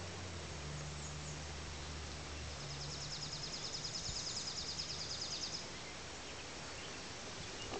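A high, rapid trill of about a dozen notes a second, typical of a small songbird, starts a few seconds in and lasts about three seconds. Under it runs a steady soft hiss of outdoor background noise.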